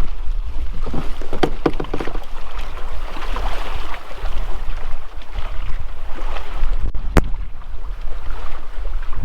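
Wind buffeting the microphone of a kayak-mounted camera, with water lapping against the kayak. A few quick knocks come about a second and a half in, and a single sharp click about seven seconds in.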